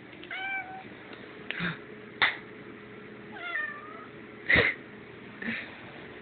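Domestic cat meowing for wet food: two drawn-out, wavering meows, about half a second and three and a half seconds in, with several short sharp sounds between them, the loudest about four and a half seconds in.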